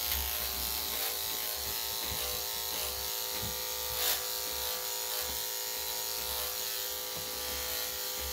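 Corded electric dog clippers fitted with a number 5 blade running steadily, buzzing as they cut through a small dog's coat around its rear. A short click about four seconds in.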